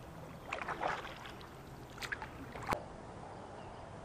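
Kayak paddle dipping and splashing in the river a few times, with water dripping off the blade. A single sharp click comes a little under three seconds in.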